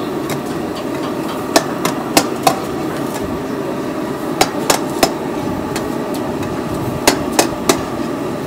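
Sharp metal knocks of cooking utensils striking pans, mostly in quick runs of three about a third of a second apart, repeating every few seconds over a steady hiss of kitchen noise.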